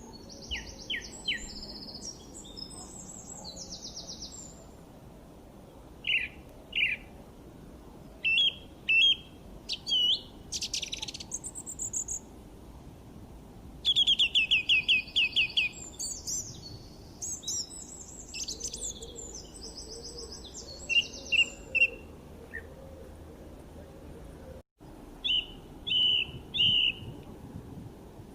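Songbirds chirping and singing: scattered short high chirps and quick trills, one rapid trill lasting about two seconds midway, over a steady low background noise.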